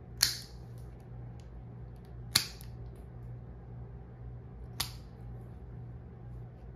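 Guillotine-style dog nail clipper snapping through a standard poodle's toenails, three sharp clips about two and a half seconds apart.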